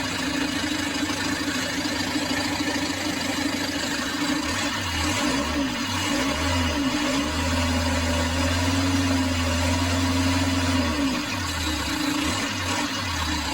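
Isuzu 4JB1 four-cylinder diesel engine idling steadily, running again after its starter was cleaned and refitted.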